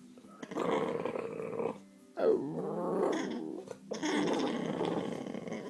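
English bulldog making three long, rough, growly moaning cries, Chewbacca-like, its pitch sliding up and down within each cry: begging for a treat.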